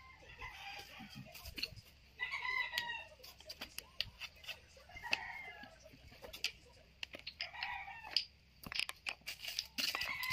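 Roosters crowing, several calls about two to three seconds apart, mixed with sharp clicks and knocks of the particleboard table panels and legs being handled.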